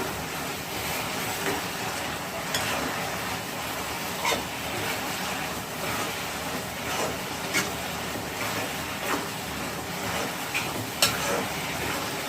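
Grated carrot halwa being stirred in a kadai over a steady sizzle as the melted sugar syrup cooks down, with scattered short knocks and scrapes of the stirring tool against the pan.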